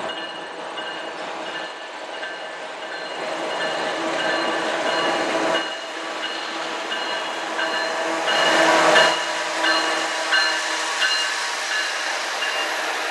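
Diesel freight locomotives approaching and passing close, engines running and wheels rolling on the rails, with a bell ringing in regular strokes throughout. The sound swells to its loudest about eight to nine seconds in as the lead locomotives come near.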